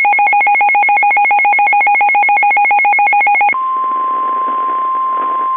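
Electronic emergency alert tones: a loud, fast warbling two-tone beep at about ten pulses a second, then about three and a half seconds in a single steady tone near 1 kHz over radio static, the NOAA Weather Radio warning alarm tone that comes before a broadcast warning.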